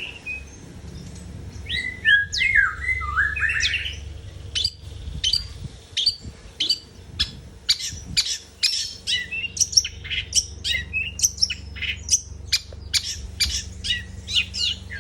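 Long-tailed shrike (cendet) singing: a couple of short phrases of quick, repeated sliding notes, then a fast string of sharp high chips and varied notes that grows denser from about halfway. A steady low hum runs underneath.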